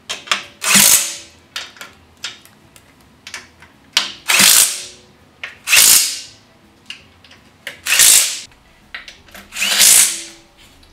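Cordless power driver running bolts down in five short bursts, fastening a transmission bellhousing through an adapter plate to the engine block, with small clicks of handling in between.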